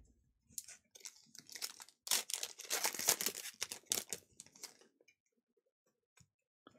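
A Panini Donruss basketball card pack's wrapper being torn open by hand, crinkling and tearing for about four seconds, most intense in the middle. The sound stops about five seconds in.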